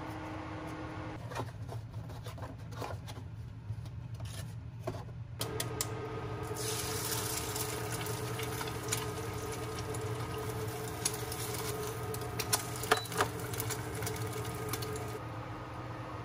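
Light clicks and knocks, then a small machine starts a steady hum and a hiss of running or pouring liquid joins it for about nine seconds, with a few sharp clinks near the end.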